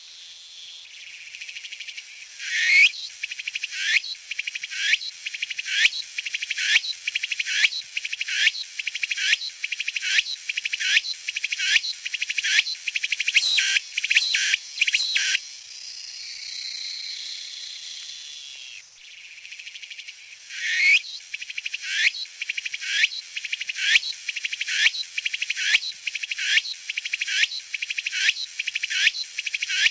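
Meimuna opalifera cicada singing: a high, rhythmic song of repeated phrases, one to two a second and quickening. About halfway through it passes into a softer steady buzz that breaks off. A new song then begins with a rising buzz and goes back into the repeated phrases.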